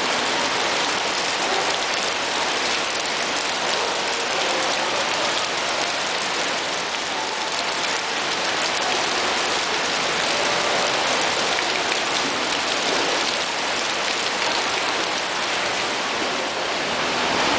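Steady rush of moving water at a koi pond, an even splashing noise without single splashes standing out.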